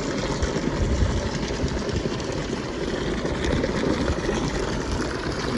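Hot spring water running and trickling into an outdoor bath, with wind buffeting the microphone in an uneven low rumble.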